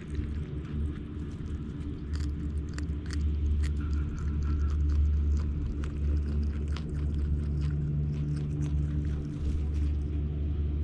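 Groundhogs crunching and chewing carrots up close: many quick, sharp crunches over a loud, steady low rumble.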